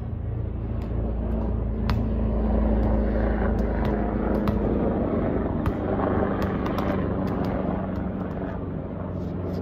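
A low engine rumble with a steady hum, swelling over the first few seconds and then slowly easing off, with a scatter of sharp taps from a ball being kicked and bounced on the asphalt driveway.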